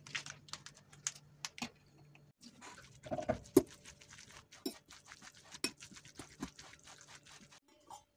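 A metal utensil stirring grated beetroot salad with mayonnaise in a ceramic bowl: a fast run of wet squelches, scrapes and clinks against the bowl, with one sharp clink about three and a half seconds in. The stirring starts about two seconds in and stops shortly before the end.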